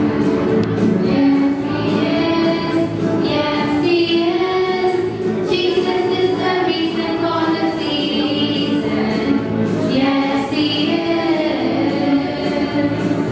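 A children's choir, mostly girls, singing a Christmas song together from song books, continuously.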